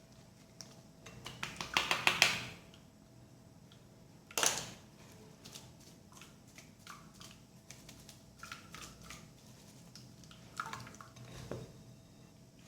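Light clicks and knocks of kitchen utensils against a strainer and bowl while blended lemon pulp is strained. There is a quick run of clicks about two seconds in and a single louder knock about four and a half seconds in.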